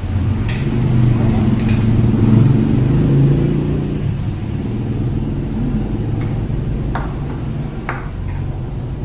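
A low, steady rumble, loudest in the first four seconds and then easing, with a few light clinks of cutlery against the dishes.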